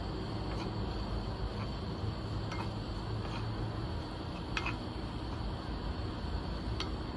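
A wooden spoon stirring chopped onions in a coated frying pan, giving a few light, irregular clicks and scrapes against the pan over a steady low background rumble.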